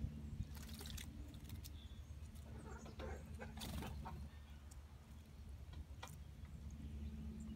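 Tufted titmouse bathing in the shallow water of a plastic tub birdbath: a few faint short bursts of splashing, the strongest about three and a half seconds in, over a low steady hum.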